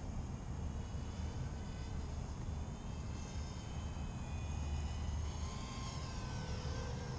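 Small 210-size FPV racing quadcopter's motors and propellers whining in flight, the pitch gliding up and down several times with throttle changes, over a steady low rumble.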